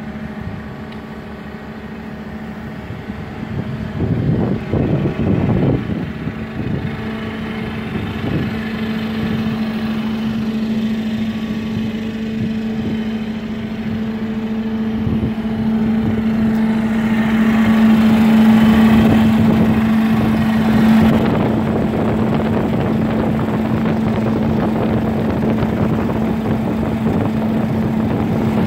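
Sherp N amphibious ATV's diesel engine idling with a steady hum, louder for a few seconds past the middle.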